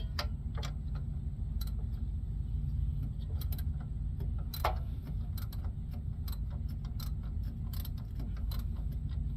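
Socket ratchet clicking in short irregular runs as a bolt on the APU belt tensioner is loosened, over a steady low engine rumble.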